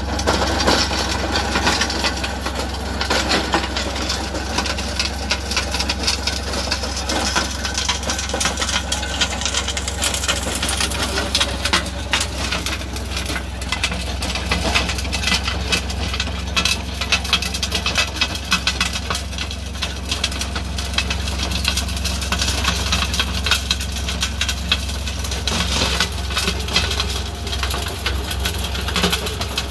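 Kubota B1211 compact tractor's diesel engine running steadily under load while its rear-mounted rotary tiller churns through grassy soil, with constant sharp clicks and rattles from soil and stones striking the tiller.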